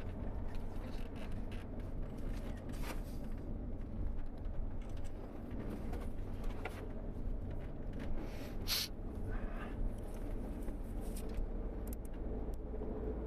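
Tour bus running at road speed, heard from inside the cabin: a steady low engine and road rumble with scattered rattles and knocks.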